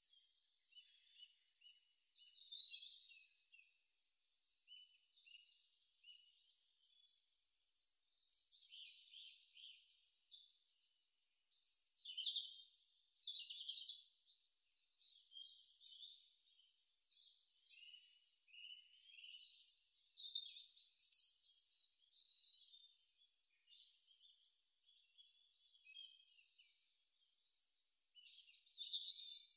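Many small birds chirping and twittering over one another in a continuous high-pitched chorus, rising and falling in busyness.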